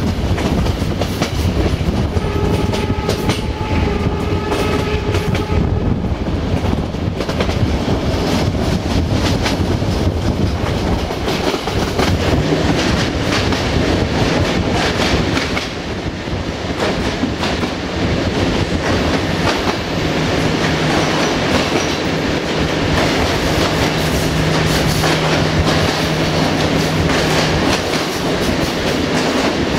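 Passenger train running on jointed track, its carriage wheels clacking over the rail joints. The locomotive horn sounds two blasts about two to five seconds in. From about the middle the train runs through a tunnel, its noise closed in and echoing, with a steady low engine hum.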